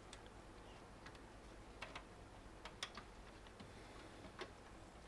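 Near silence with a few faint, irregular clicks and taps: cables and small parts being handled and fed through a PC case.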